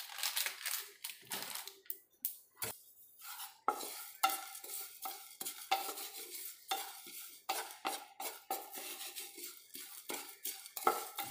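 A spatula stirring and scraping a pan of whole spices, lentils and curry leaves as they dry-roast for sambar masala: irregular scrapes with the rattle of seeds and dals against the pan.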